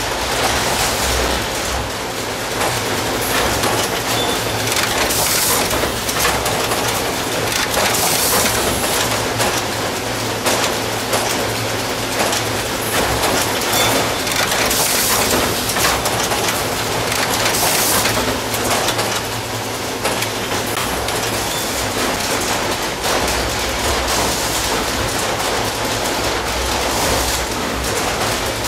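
Automated cheque-book production machinery running: a steady, dense mechanical clatter over a low hum, with brief hissing surges several times.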